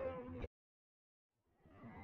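Background voices and street noise that cut off abruptly, then about a second of dead silence at an edit, after which the background fades back in.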